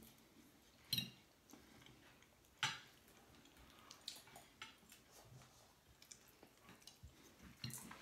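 Forks and knives clinking and scraping on dinner plates, faint, with two sharper clicks about a second and nearly three seconds in and small ticks after.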